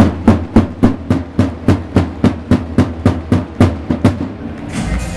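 Evenly spaced drum hits, about three and a half a second, each with a short low ring, stopping about four seconds in; the music comes in near the end.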